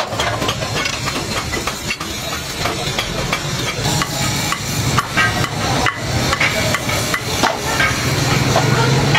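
Metal clinks and knocks of truck clutch pressure-plate coil springs being handled in a metal bowl, over a steady low hum and hiss.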